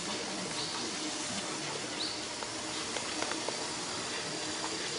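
Steady hiss with a few faint, short, rising high chirps and light clicks.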